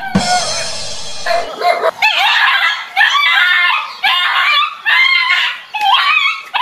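A dog crying out as it attacks, starting with a harsh rasping cry for about the first second and a half. This is followed by a rapid series of high, wavering yelps and howls.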